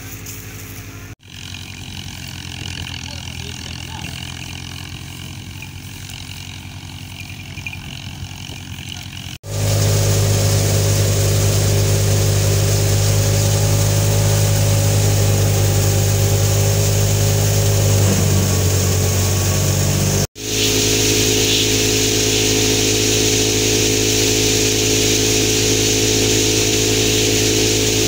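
Wheat threshing machine running at a steady speed, an even engine-like drone with a constant pitch. It is quieter for the first several seconds, then much louder and closer after an abrupt cut.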